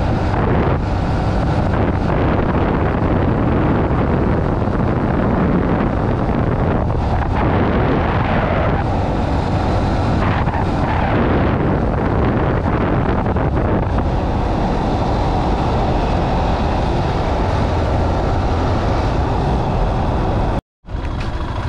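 Motorcycle being ridden along an unpaved road, its engine running under steady wind buffeting on the microphone. The sound drops out for a split second near the end.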